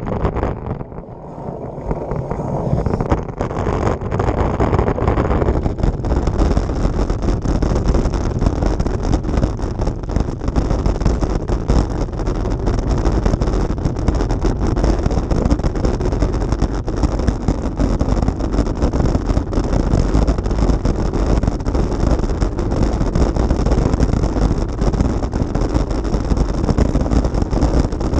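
Road bike rattling and rumbling over cobblestones, heard through a handlebar-mounted camera that shakes with the constant vibration, with some wind on the microphone. The rattle eases for a couple of seconds about a second in, then returns steadily.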